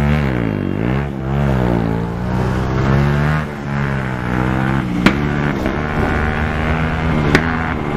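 Motorcycle engine revving as the bike pulls away. The pitch dips and climbs again about a second in, then the engine runs fairly steady at high revs, with two sharp clicks about five and seven seconds in.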